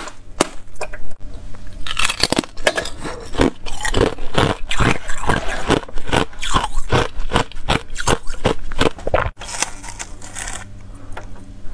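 Thin ice shell of a frozen water ball being cracked open with the point of a pair of scissors: a run of sharp ice cracks and snaps that thickens into dense crackling, stopping about nine seconds in.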